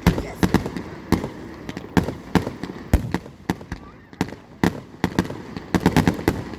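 Fireworks bursting in a rapid, irregular string of sharp bangs, several a second, crowding closer together near the end.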